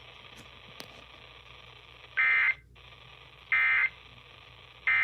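EAS/SAME end-of-message data bursts: short buzzing digital tone bursts about a second and a half apart, the third cut off at the end, over steady radio hiss. They signal the close of the severe thunderstorm warning broadcast.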